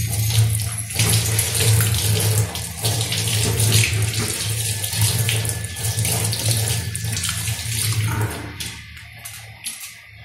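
Kitchen tap running into a stainless steel sink, the water splashing over a hand held under the stream. The flow stops about eight seconds in.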